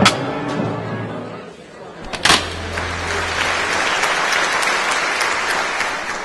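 Music fading out, a single sharp tap about two seconds in, then steady audience applause.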